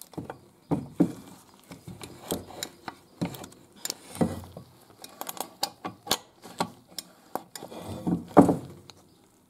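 Freshly greased kick starter mechanism in a 50 cc scooter's aluminium variomatic cover being fitted and worked by hand: irregular metallic clicks and knocks from the kick starter gear, spring and lever, with a few heavier knocks near the middle and near the end as the cover is handled on the bench.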